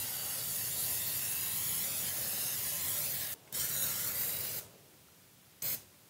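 Aerosol nonstick cooking spray hissing from the can: one long spray of about three seconds, a second shorter spray right after a brief pause, and a quick spurt near the end.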